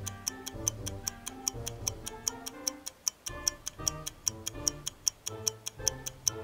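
Countdown-timer music: a light tune of short notes over a steady clock-like ticking, about four ticks a second.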